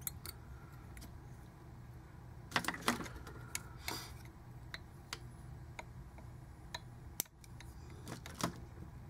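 Scattered small clicks and ticks of hands handling thread and materials at a fly-tying vise, a short cluster about two and a half seconds in and a few single ticks later, over a faint steady low hum.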